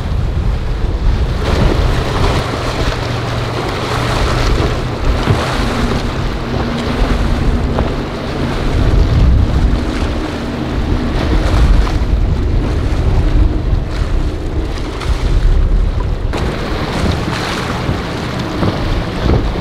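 Motorboats running hard through rough inlet water, a steady low engine rumble mixed with the rush of waves and hull spray. Heavy wind buffets the microphone. The sound shifts abruptly twice as it cuts from one boat to another.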